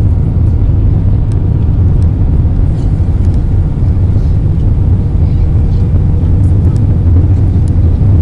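Cabin noise inside an Airbus A320 airliner during its landing: a loud, steady low rumble of the engines and the air rushing past the fuselage.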